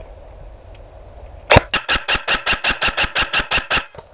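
An airsoft electric rifle firing a long burst of rapid shots, about eight a second, starting about a second and a half in and stopping just before the end.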